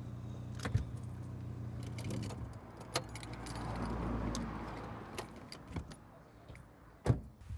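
Small car's engine idling, then switched off about two and a half seconds in, with keys jangling and sharp clicks as they are handled at the ignition. The driver's door opens, and a loud thump near the end is the door shutting.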